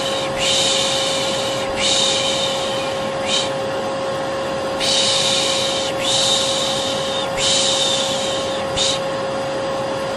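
Vacuum cleaner running with a steady hum, overlaid by a person shushing 'shhh' again and again, long shushes with an occasional short one between, about one every second and a half.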